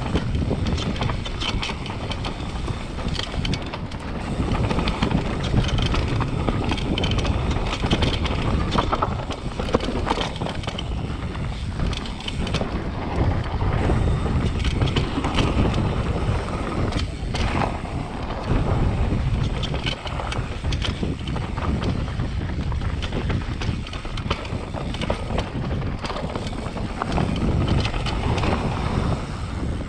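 Mountain bike descending a rough trail at speed: wind rushing over the microphone and tyres rolling over the ground, with the bike rattling in many small knocks and clatters.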